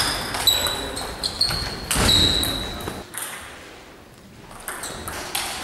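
Table tennis balls clicking off bats and tables during rallies, a quick run of sharp pings, some ringing briefly. There is a louder knock about two seconds in, a quieter lull, then more clicks near the end.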